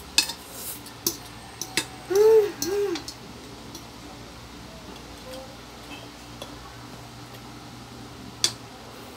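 Eating utensils clicking against ceramic bowls, a few sharp clinks in the first two seconds and one more near the end. About two seconds in, two short hummed vocal sounds, each rising then falling in pitch, from an eater reacting to the spicy noodles.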